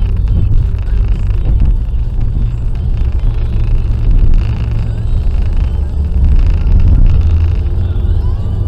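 Car driving along a motorway: a steady low rumble of engine and road noise.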